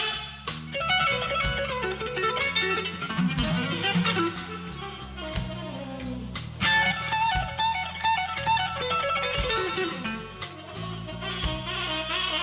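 A live blues band playing an instrumental passage: electric guitar playing lead lines over bass guitar and drums.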